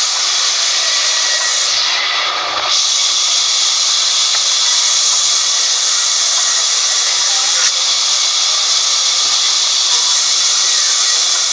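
Sawmill band saw running and cutting lengthwise through a thick timber slab: a loud, steady, even hiss.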